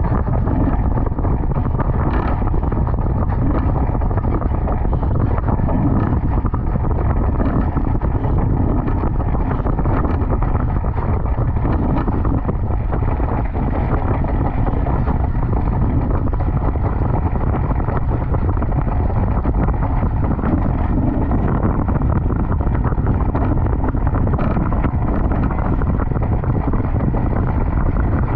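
Steady wind noise buffeting the microphone of a deck-mounted camera on a foiling Moth dinghy sailing downwind at about 40 km/h. A faint steady high whine sits underneath.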